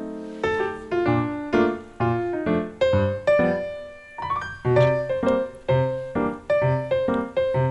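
Background music: piano or electric piano playing notes at a steady pace, each note struck and fading.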